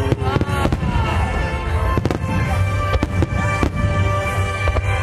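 A barrage of firework shells bursting in an irregular run of sharp bangs over a constant low rumble, with music playing alongside.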